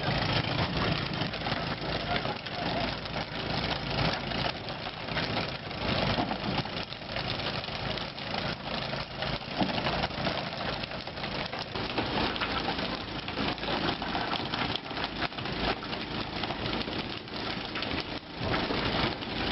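Noise on a tuna fishing boat at sea: an engine running under splashing water, with frequent knocks as fish are flung onto the deck.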